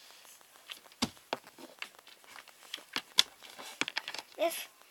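Faint handling noise as a baby doll is handled: scattered crinkles and small sharp clicks at irregular intervals, the loudest about a second in and again past three seconds.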